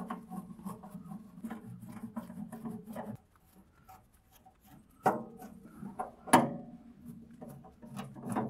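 Screws being worked out of the sheet-steel case of an old Sears Craftsman arc welder by hand: a creaking, grating run of rapid clicks, with two sharp metallic knocks about five and six and a half seconds in.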